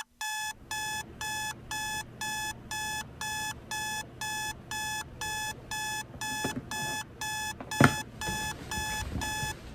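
Electronic alarm clock beeping in a steady pattern of about two short beeps a second, the morning wake-up alarm. A single sharp thump about eight seconds in, and the beeping stops near the end.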